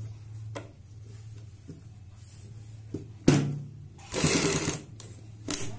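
Sewing machine stitching in short runs as fabric is fed under the presser foot: a few sharp clicks and a louder run of stitching lasting under a second, about four seconds in, over a steady low hum.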